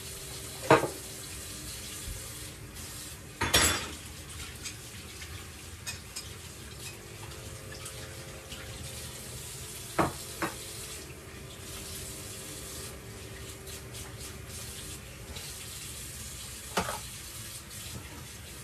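Kitchen tap running steadily into a metal sink as greens are rinsed, with about five sharp clunks of dishes and utensils on the sink and counter.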